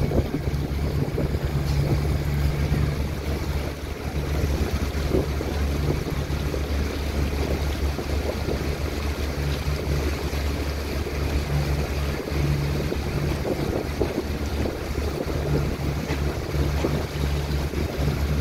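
A motorboat's engine running steadily with a low hum, over water rushing and splashing along the hull and wind on the microphone.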